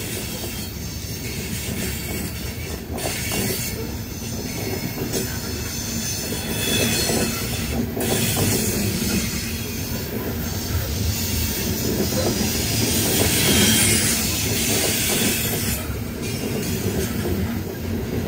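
Loaded coal hoppers of a freight train rolling past: a steady rumble of steel wheels on rail, with high-pitched wheel squeal that swells at times and a few sharp clacks.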